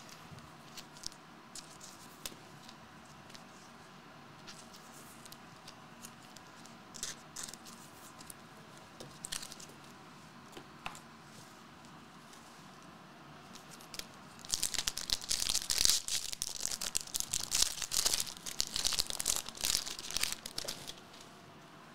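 Light clicks and taps of cards being handled, then, about 14 seconds in, a 2022 Upper Deck Marvel Masterpieces foil trading-card pack being torn open, its wrapper crinkling and crackling for several seconds.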